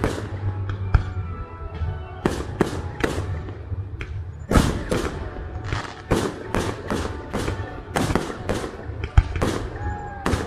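Fireworks bursting overhead during a display: a rapid, irregular string of bangs, about two to three a second, each echoing briefly.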